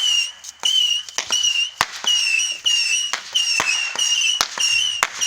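Fireworks going off in many sharp cracks and bangs. Through them, a high whistle-like tone repeats about every half second.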